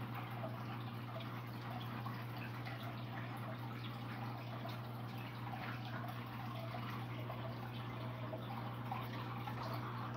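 Running aquarium: a steady low electric hum from the tank's air pump under continuous small drips and bubbling of water.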